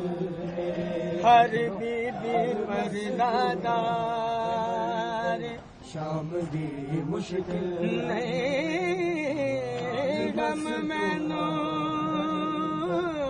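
A noha being chanted as a lament, one voice holding long wavering notes. There is a short break about five and a half seconds in.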